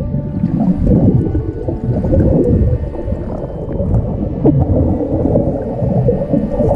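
Underwater sound of a river pool: a loud, steady, muffled low rumble and gurgle of moving water and bubbles.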